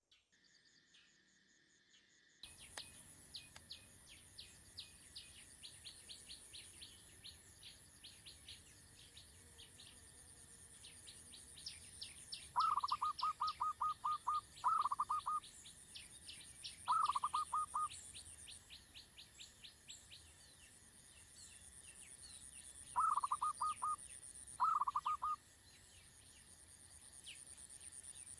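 Birds calling: a steady run of quick high chirps, broken about halfway in by several loud, rapid bursts of repeated notes. A constant high insect-like drone runs underneath.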